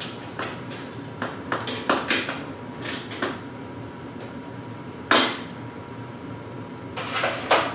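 Metal hand tools clinking and clanking as they are picked up and handled: about a dozen irregular sharp clicks, with one loud clank about five seconds in and two more near the end.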